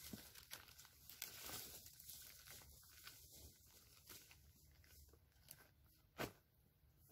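Faint rustling and crinkling from someone handling gear and moving about, with one short sharp knock a little after six seconds.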